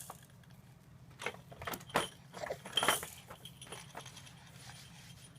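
A snack being eaten: a quick run of short crunching clicks from chewing, most of them between about one and four seconds in, then fading.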